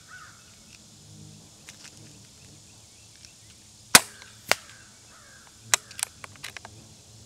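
Benjamin Fortitude .22 regulated PCP air rifle firing one shot just before four seconds in, a sharp crack. About half a second later comes a second, quieter crack, and a few lighter clicks follow a second or so after that.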